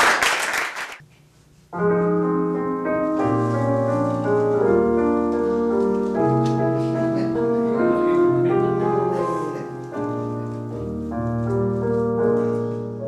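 Applause dies away in the first second. After a short pause a piano starts playing the introduction to a song, with held bass notes under changing chords.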